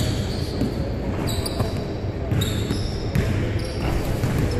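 Basketballs bouncing on a hardwood gym floor, with sneakers squeaking on the court in several short, high chirps.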